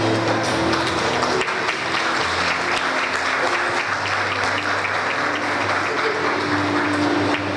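Audience applauding, the clapping fullest in the middle and easing off toward the end.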